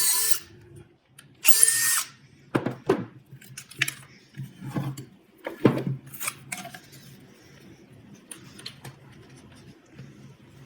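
Power drill drilling screw holes in wood: one run stops just after the start and a second short run follows a moment later. Several knocks and clatters of wood and tool handling come after.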